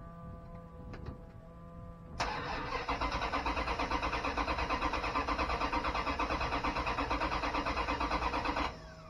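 Freshly rebuilt 408 stroker small-block V8 cranking on the starter without firing: a fast, even chug for about six seconds that starts about two seconds in and stops abruptly. The distributor has just been dropped in with its timing unknown.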